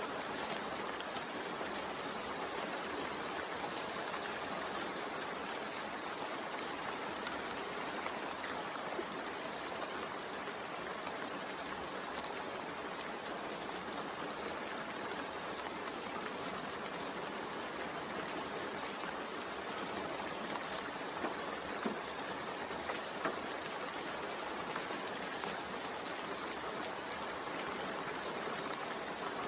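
Steady rain falling, an even hiss with a few faint drop ticks a little past two-thirds of the way through.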